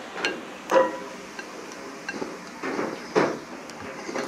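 Ramen broth being drunk straight from a tilted bowl: a few short, loud gulps and swallows, the loudest about a second in and again just past three seconds.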